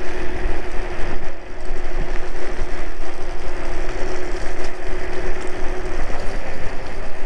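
iScooter iX4 off-road electric scooter riding along tarmac at speed: a loud rush of wind on the microphone and tyre rumble, with a steady hum that stops about six seconds in.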